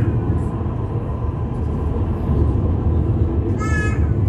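Steady low rumble of an Alstom Citadis Dualis tram-train running along the track, heard from inside the passenger cabin. A brief high-pitched sound comes near the end.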